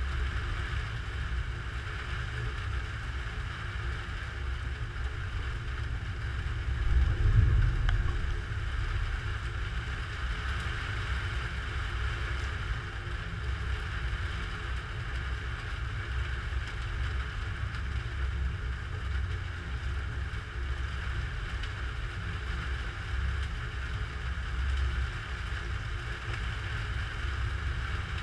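Thunderstorm ambience: a steady low rumble of wind, swelling louder once about seven seconds in.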